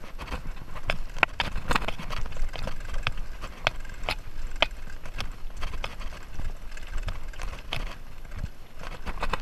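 Mountain bike rolling fast over a dirt forest trail: irregular sharp knocks and rattles from the bike's chain and parts jolting over bumps, over a low rumble of tyres on dirt.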